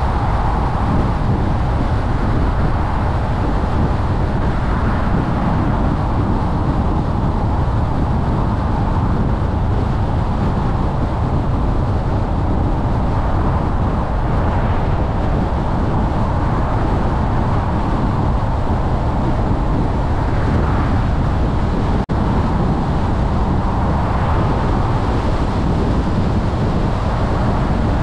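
Steady road noise of a car driving at highway speed: low tyre rumble on the pavement with wind rushing over the microphone. There is one very brief dropout about three-quarters of the way through.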